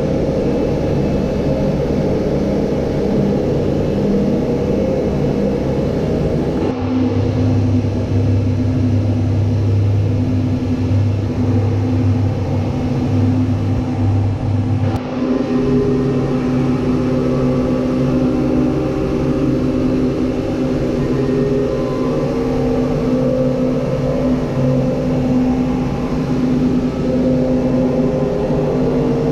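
A steady motor drone with a few held tones that shift abruptly about seven and fifteen seconds in.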